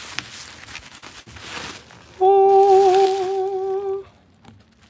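Plastic bubble wrap rustling as it is pulled off a spear gun, then a man's voice holding one loud sung note for about two seconds, a mock fanfare for the reveal, breaking off about four seconds in.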